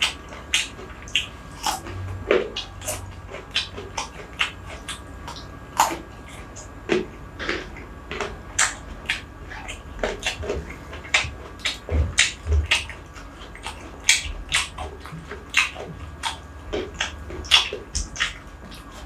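Close-miked chewing of a mouthful of rice by hand: irregular wet mouth clicks and smacks, a few a second.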